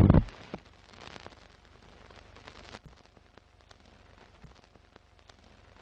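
A thunderclap right at the start, dying away within about a second, followed by faint crackling with scattered clicks.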